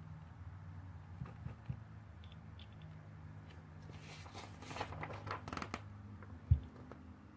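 Paper rustling at a desk, a page being handled and turned for about two seconds, after a few light clicks. Near the end comes a single low thump on the desk, the loudest sound.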